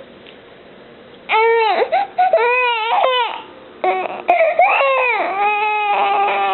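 Three-month-old baby crying in fright at the sound of her mother's coughing. After a short quiet, loud wailing cries begin about a second in, each rising and falling in pitch. They pause briefly around the middle, then resume and end in a long, held wail.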